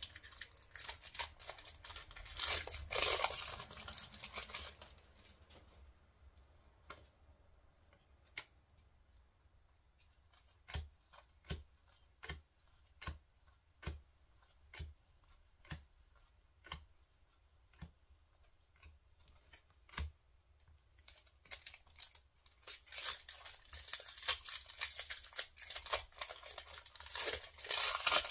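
Foil Pokémon TCG booster-pack wrappers crinkling and tearing open. In between, a run of separate light ticks about once a second as cards are handled and laid down one at a time, before the next wrapper is torn open near the end.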